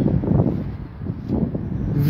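Wind buffeting the microphone in gusts, a low rumbling rush that is loudest at the start and again just past the middle.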